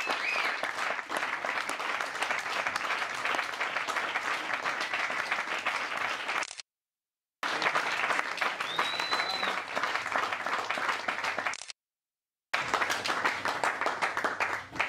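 Audience applauding steadily after a live set. The applause cuts out twice into about a second of dead silence.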